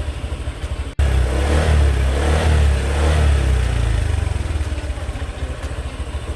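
Honda Click 125i scooter's single-cylinder engine running on its newly fitted battery. It idles with an even pulse, then after a brief break about a second in it runs louder, revs up and back down, and settles back toward idle.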